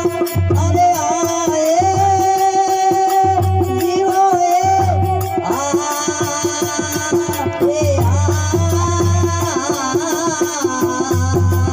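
Rajasthani devotional bhajan music: a held melodic line that shifts pitch every few seconds, over a steady drum beat and jingling percussion.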